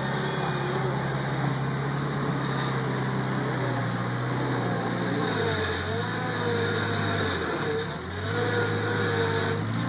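Bobcat 743 skid steer loader's engine running steadily at working revs, with a higher wavering whine above it. The engine note dips briefly twice, about halfway through and again near the end, as the machine takes load.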